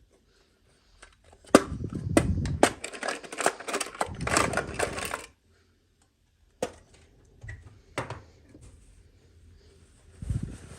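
Small plastic toy packaging and pieces being handled and opened: a sharp click about a second and a half in, then about four seconds of quick clicks and crinkling, then a few single clicks and a soft thump near the end.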